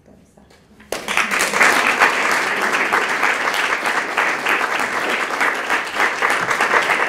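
Small audience clapping, starting suddenly about a second in and going on steadily.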